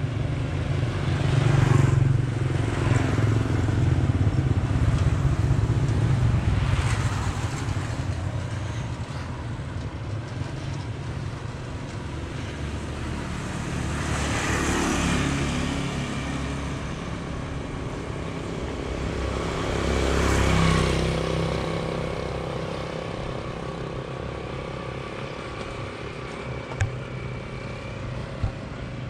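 Motorbikes and cars passing along a street, each one swelling and then fading, most clearly about halfway through and again about two-thirds through, over a low steady engine hum. Two short clicks near the end.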